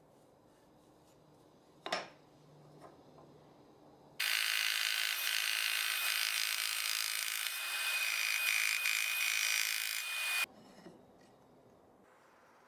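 Small electric scroll saw running and cutting into a small block of hardwood, a steady, hissing saw noise with a faint high whine. It starts suddenly about four seconds in and cuts off suddenly about ten seconds in. A single sharp knock about two seconds in.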